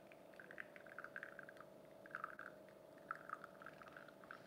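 SPINN coffee machine dispensing a shot: a faint steady hum from the machine, with irregular little crackles and splashes from the coffee stream falling into the cup.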